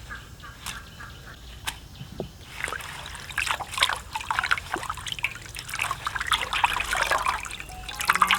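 Water being sloshed and splashed as fresh herbs and fruit are washed: a few scattered drips at first, then busy splashing and trickling from about two and a half seconds in.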